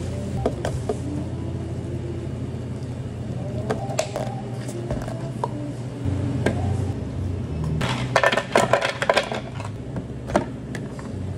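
Café drink-making sounds over a steady low hum: a few scattered clinks and taps, then a quick run of clattering about eight seconds in as ice cubes drop into a plastic blender jug.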